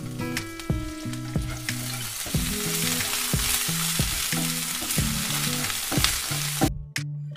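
Diced carrot, onion and green peas sizzling in oil in a non-stick frying pan while a spatula stirs them around. The sizzle swells about two seconds in and cuts off suddenly near the end.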